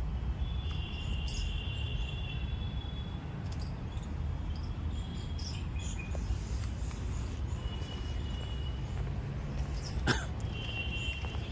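Outdoor park ambience: a steady low rumble with a few high-pitched trills from birds or insects, and one sharp click about ten seconds in.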